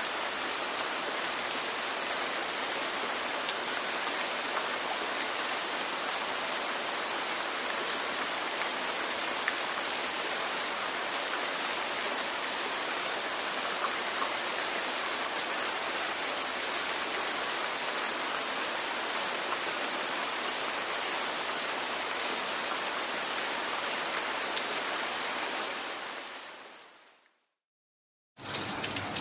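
Steady rain falling, an even continuous hiss, that fades out near the end; after a moment of silence another rain sound starts.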